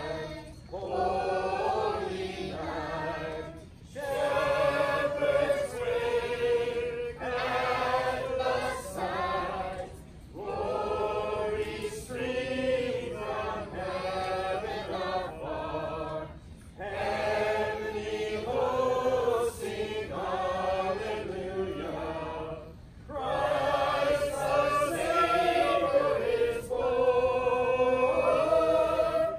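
A mixed group of men and women singing together unaccompanied, in long phrases of about six seconds separated by short breaks.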